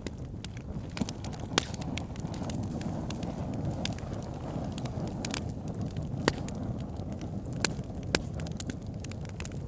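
Campfire burning: a steady low rush of flames with irregular sharp crackles and pops from the burning wood, a few of them loud.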